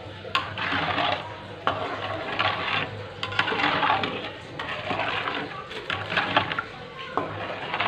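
Stainless steel ladle stirring coconut milk in a metal pan: a swish and scrape of the ladle against the pan about once a second, with sharp clinks of metal on metal.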